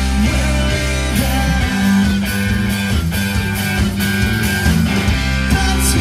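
Live rock band playing a song on electric guitars and drums, loud and dense with cymbal hits.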